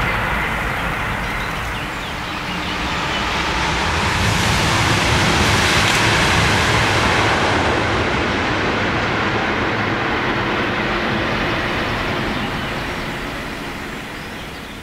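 High-speed electric train passing at speed: a loud rush of wheel and air noise with a steady whine at first, swelling about six seconds in and then fading, cut off at the end.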